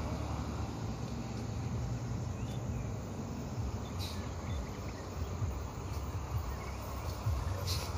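Outdoor road ambience: a steady low rumble of vehicle engines running, with a few faint clicks.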